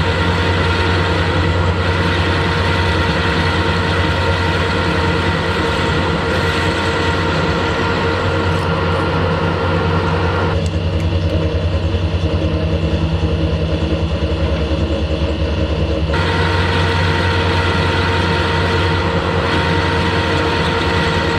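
Harrison lathe running steadily with its chuck spinning: a constant motor and gearbox hum with several steady whining tones over it. In the middle, for about five seconds, part of the higher whine drops away, then returns.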